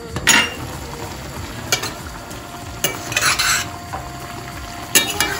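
A glass lid is lifted off a stainless steel pot with a clatter. A metal spoon then stirs sliced red peppers in their boiling vinegar, oil and water brine, scraping and clicking against the pot, over the sizzling simmer of the liquid.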